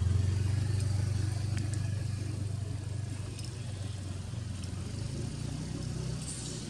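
A motor vehicle engine running with a steady low drone, loudest at the start and slowly easing off.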